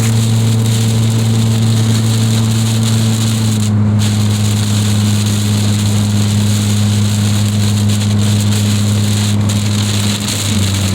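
Heavy hurricane rain pouring down, a steady hiss of noise, under a loud steady low hum from an unseen source.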